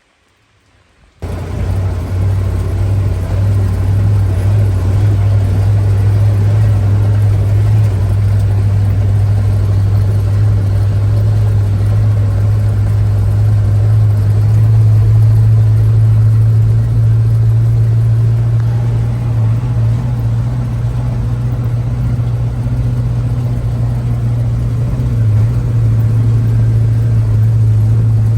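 Logging truck engine running with a steady low drone that cuts in abruptly about a second in and holds level throughout.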